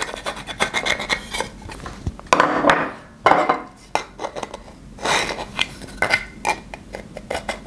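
Thin 3D-printed plastic parts rubbing, scraping and clicking against each other as they are handled and fitted together.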